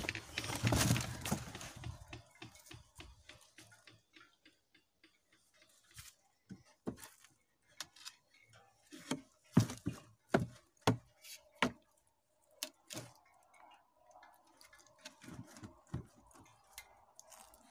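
A person moving about on foot: a loud rustle of brushing and handling at the start, then a run of irregular sharp clicks and knocks, about two a second, that stops about 13 seconds in.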